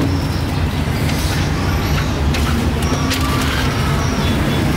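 Street traffic: motor engines running in a steady low rumble, with scattered short clicks and clatter.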